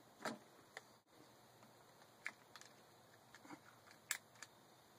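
A handful of faint, sharp clicks and taps from hands handling plastic water pipe and a hand tool, over near silence.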